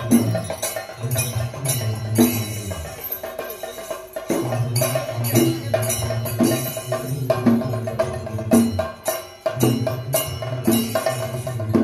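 Music with percussion strikes over a held tone beneath.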